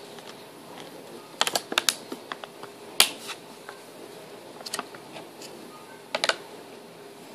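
Golden retriever puppy chewing a clear plastic strawberry clamshell container: sharp plastic clicks and crackles come in a few quick clusters, with one loud crack about three seconds in.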